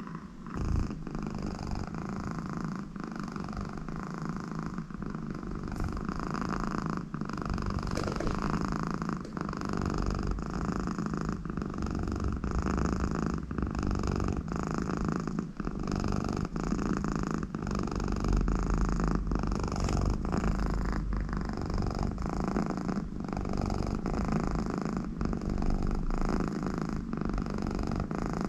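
American Shorthair cat purring loudly and steadily, the purr dipping briefly about once a second as she breathes in and out.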